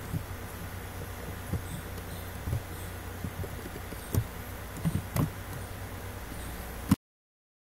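Steady low background hum and hiss with a few scattered soft knocks and clicks. The sound cuts off to dead silence near the end.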